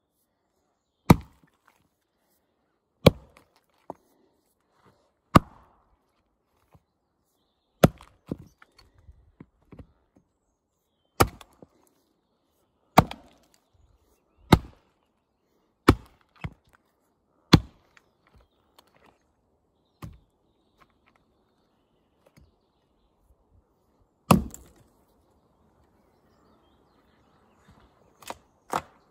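Tuatahi axe chopping into a log: about a dozen sharp strikes of the axe bit into the wood, one every one to two seconds, with two quicker, lighter strikes near the end.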